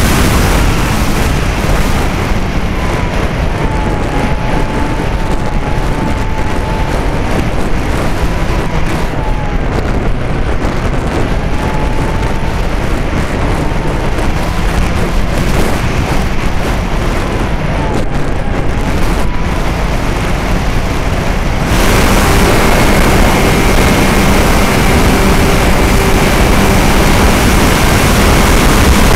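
Strong wind buffeting the microphone, over the faint whine of a radio-controlled model plane's motor, which wavers up and down in pitch as the plane flies around. Near the end the sound abruptly turns brighter and hissier, with a steadier motor tone.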